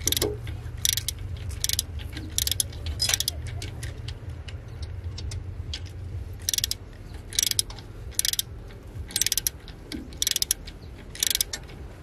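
Short rasping strokes, about one a second, pausing for a few seconds midway, over a steady low hum.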